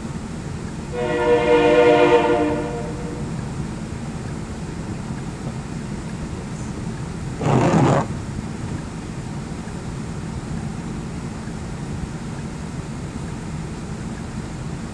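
A vehicle horn sounds once for about two seconds, a steady chord of several notes, over the low hum of traffic idling at a light. About seven and a half seconds in comes a short rustling whoosh.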